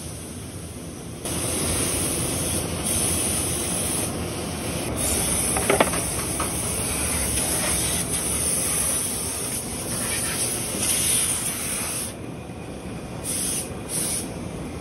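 Compressed air hissing as it blasts dust out of a seed cleaning machine. It starts about a second in and runs steadily, then comes in a few short bursts near the end, over a low rumble.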